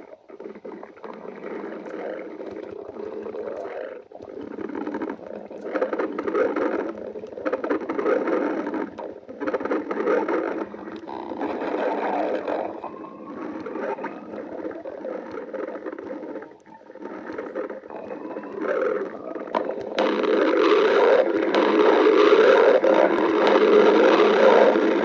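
Stomach growling and gurgling in long, uneven rumbles with a few short pitch glides. It grows louder about twenty seconds in.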